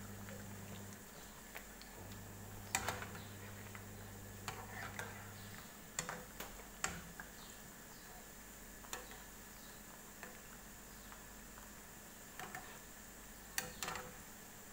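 Metal slotted spatula clicking and scraping against a frying pan at irregular intervals as it turns dough spirals frying in hot oil, over a faint steady sizzle.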